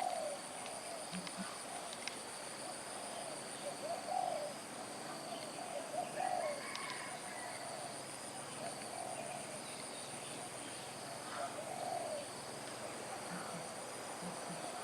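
Birds in an aviary giving short, low, cooing calls repeated every second or so, over a steady high-pitched whine.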